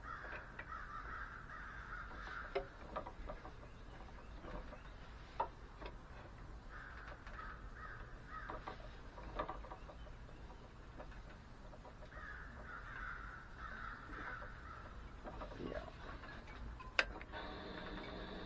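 Light clicks and knocks with a few short raspy bursts. Near the end, a wood lathe's motor switches on and runs with a steady whine: a test spin to check that nothing is knocking or touching.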